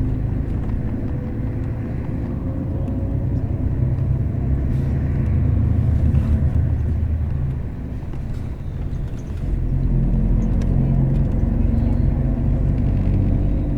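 Bus running on the road, heard from inside: a steady low engine drone that dips about eight seconds in and builds again a second or so later, with faint rattles.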